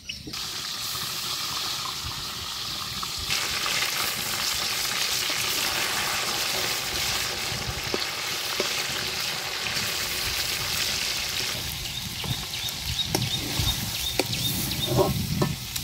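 Fish frying in hot mustard oil in a wok, a steady sizzle that grows louder about three seconds in and eases off again near the end.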